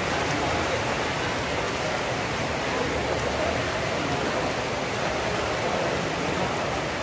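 A steady, even hiss of noise throughout, with faint sharp clicks of a table tennis ball during a doubles rally.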